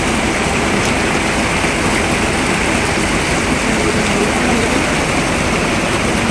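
Small mountain spring cascade splashing down over rocks, a steady close rushing of falling water.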